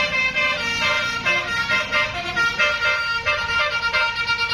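Bus telolet horn playing a quick tune, several horn notes sounding together and stepping from note to note, over a bus engine running.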